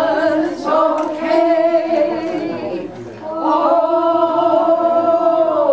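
A small group of women singing a cappella in unison, holding long sung notes. There is a short breath about three seconds in, then a second long held note that ends near the end.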